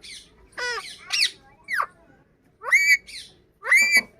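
A parrot calling in a run of about six short calls, some dropping steeply in pitch and others rising and holding. The loudest two come near the end.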